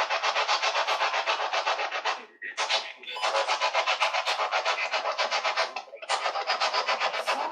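Spirit box sweeping through radio frequencies: a rapid, evenly chopped hiss of static, with two brief dropouts partway through.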